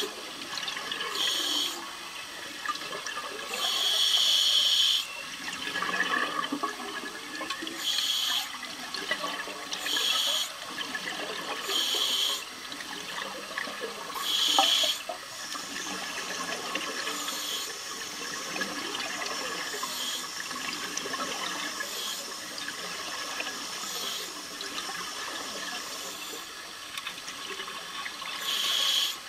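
Scuba diver's exhaled bubbles gurgling out of the regulator underwater in short bursts every few seconds, over a steady underwater hiss.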